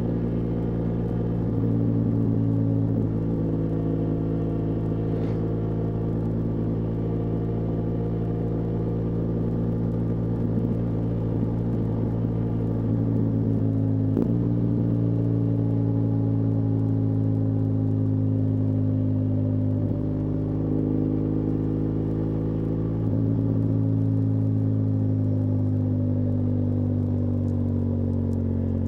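BMW R1200GS Adventure's liquid-cooled boxer twin running on the road. Its note shifts in pitch several times, with a couple of sudden steps and a slow fall in between as the throttle and revs change.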